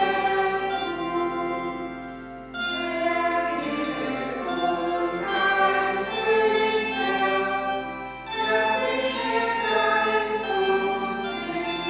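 Choir singing a hymn, with short breaks between phrases about two and a half and eight seconds in.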